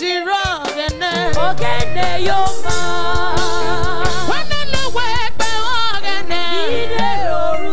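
Gospel praise singing with vibrato-laden voices; about a second in a full live church band with drums and bass comes in loudly and carries on under the singing.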